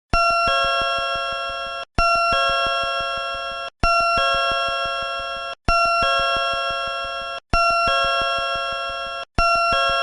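Door-closing chime of a Dokodemo-saku mobile platform door, played straight from its electronic sound chip. It is a two-note ding-dong: a higher note, then a lower note a moment later, both fading together. The chime repeats about every 1.8 seconds, six times over.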